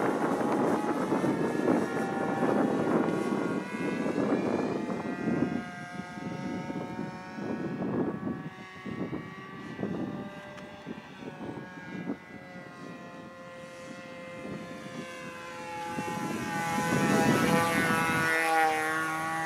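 Radio-controlled Carl Goldberg Eaglet 50 model airplane's small .15 engine droning in flight. The sound fades as the plane flies off, then grows louder near the end as it makes a close pass, its pitch dropping as it goes by.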